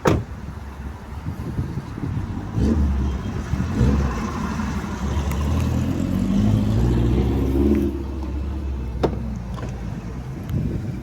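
Car engine running, the hum swelling about two and a half seconds in, holding higher for several seconds, then easing back. Sharp clicks at the start and near nine seconds.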